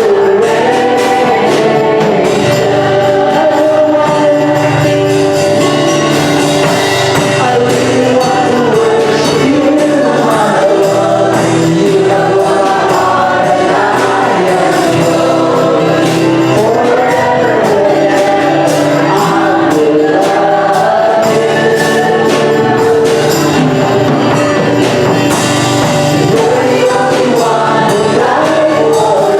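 Congregation or choir singing a gospel hymn with instrumental accompaniment, steady throughout.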